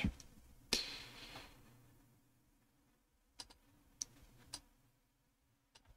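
A few faint, sparse clicks of a computer mouse, four of them spread over the second half. A short soft hiss fades away about a second in.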